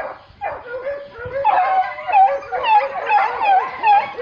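Several penned dogs barking and yelping in a steady run of short calls. From about a second and a half in, the calls come thicker and louder, higher yelps overlapping one another.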